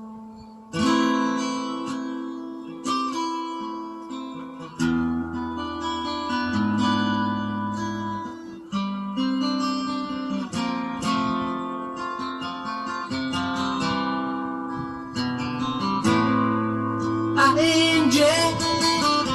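Acoustic guitar music: chords plucked and strummed, each struck and left to ring before the next, about every two to three seconds. A higher, wavering melody line comes in near the end.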